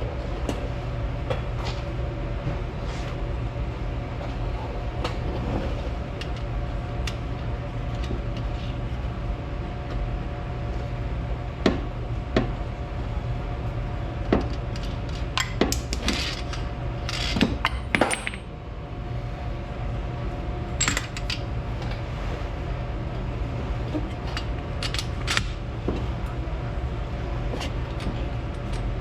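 Scattered light metallic clinks and taps of hand tools and small fasteners being handled, most of them clustered a little past the middle, over a steady low hum.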